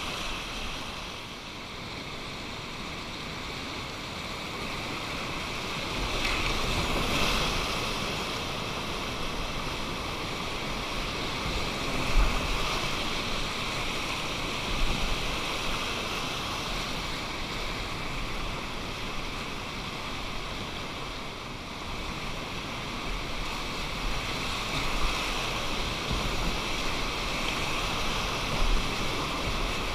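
Steady rush of whitewater river rapids, with a few short low thumps on the microphone.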